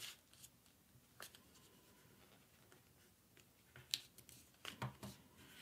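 Near silence with a few faint, brief paper rustles and taps as a folded sheet of paper is flipped over and creased by hand, the sharpest tick about four seconds in.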